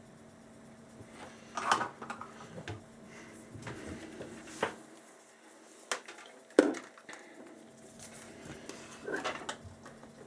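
Small hand tools clicking and clattering as they are picked up and set down on a workbench during a headset repair, in a few separate sharp knocks.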